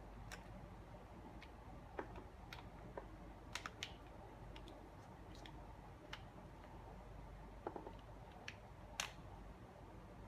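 Faint, irregular small clicks and taps as a brush end cap and the bristle tubes are worked into line on an aluminium channel, about a dozen in all, the sharpest near the end.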